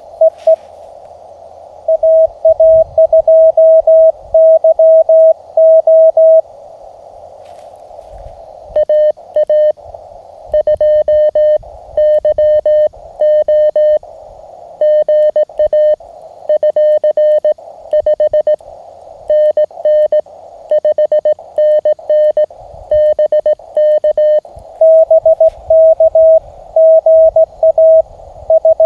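Morse code (CW) from a Mountain Topper MTR transceiver: a single mid-pitched tone keyed on and off in dots and dashes, over the steady hiss of the receiver's narrow CW filter. It comes in stretches of sending, louder in the first few seconds and again near the end, and somewhat quieter in between.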